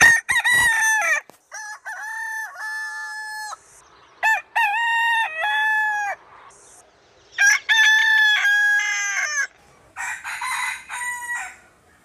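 Rooster crowing, about five crows in a row with short gaps between them, each crow lasting one to two seconds.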